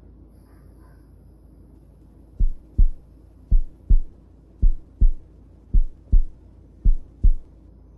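Heartbeat: five slow lub-dub double thumps, one pair a little over a second apart, starting about two and a half seconds in.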